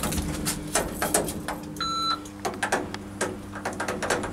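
ThyssenKrupp MRL elevator car controls: a run of clicks as the car buttons are pressed, and one short electronic beep about two seconds in, over a low steady hum.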